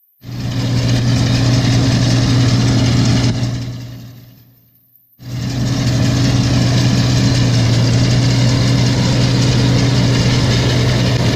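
Engine running steadily with a low hum, heard in two stretches. It cuts in sharply at the start, fades out after about four seconds, and cuts back in about five seconds in.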